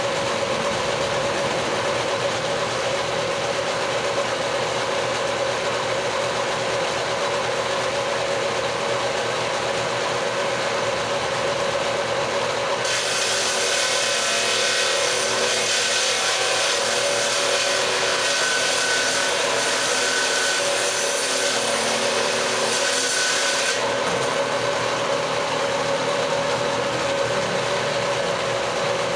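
Hand-held electric power tool running steadily while rebating a wooden door jamb, its motor holding one steady pitch; from about 13 to 24 seconds in a harsher, hissier cutting sound joins it as the cutter bites into the wood.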